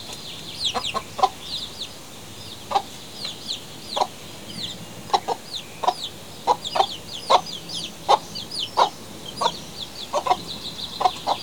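Chickens clucking: short, louder clucks every half second to a second over a near-continuous run of high, falling peeps.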